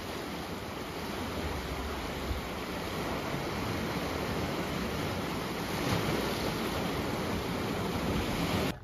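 Small sea waves washing in and draining over a flat rock shore, a steady rushing surf that swells slightly midway and cuts off suddenly near the end.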